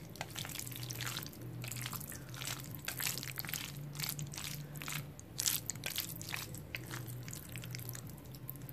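Jajangmyeon noodles in black bean sauce being stirred and lifted with wooden chopsticks close to the microphone: a dense run of short, wet clicks and squishes, over a steady low hum.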